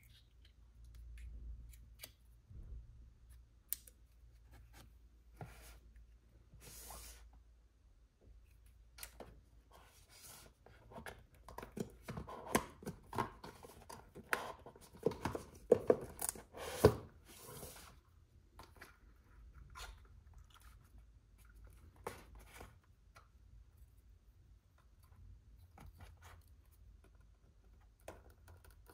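Cardboard packaging and a plastic gimbal being handled: scattered taps, clicks and rustles, busiest in the middle, with a few sharp knocks.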